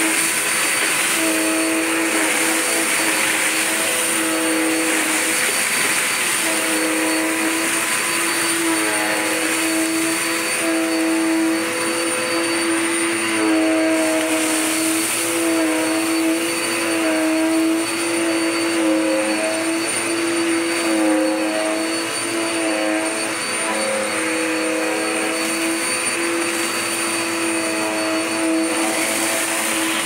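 Dirt Devil Power Max upright vacuum cleaner running on carpet, sucking up broken chips. It gives a steady motor whine over a constant rush of air, and the pitch wavers slightly as it is pushed back and forth.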